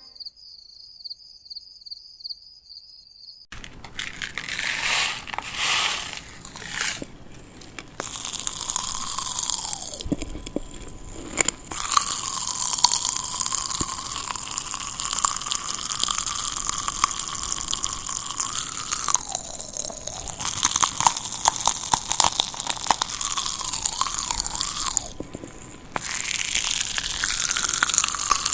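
Close-miked crackling and rushing noise with a hollow ringing tone running through it, starting a few seconds in after a faint lead-in. The tone drops out briefly twice and returns.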